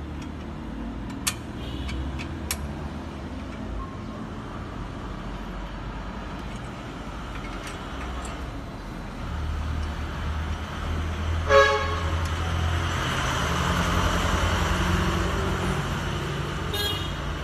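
Steady low rumble of road traffic with a short vehicle horn toot about eleven seconds in, and a couple of sharp clicks in the first few seconds as the toilet's mounting hardware is handled.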